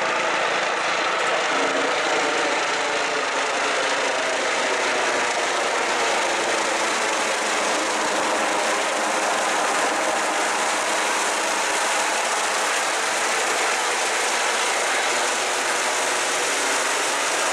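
Eurocopter EC135 rescue helicopter flying low overhead on its arrival to land: the loud, steady whir of its main rotor and twin turbine engines, holding even throughout.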